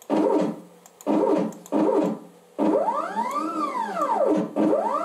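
Stepper motors of a DIY CNC router whining as the Y axis is jogged: three short moves, then a longer one whose pitch rises and falls as the axis speeds up and slows down, and another rise near the end. The axis is responding to the jog commands.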